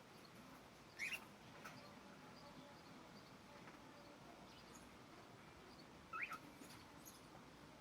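Cockatiels giving two short, rising chirps about five seconds apart, over faint background with a few soft ticks.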